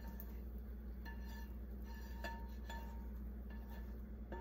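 Metal slotted spatula tapping and scraping in a frying pan: a string of light clinks that ring briefly, over a steady low hum.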